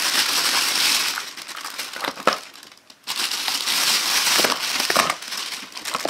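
Clear plastic bag holding a bundle of model-railway straight rail sections crinkling as it is handled, with a few light clicks of the track pieces. The rustling drops away briefly about two and a half seconds in, then starts again.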